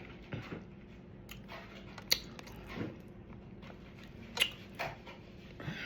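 Close-miked mouth sounds of a person chewing food: soft wet smacks and clicks at irregular intervals, with two sharper clicks about two and four and a half seconds in.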